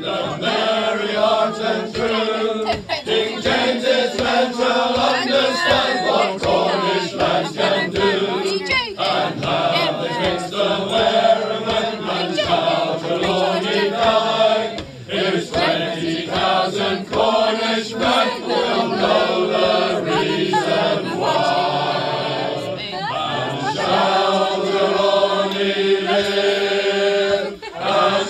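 Unaccompanied male choir singing together in several parts, with brief breaks between phrases.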